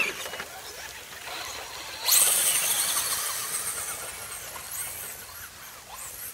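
Electric Traxxas RC trucks accelerating away across grass. A sudden high motor whine and tyre hiss come in about two seconds in, with pitch glides as the throttle changes, and fade as they drive off.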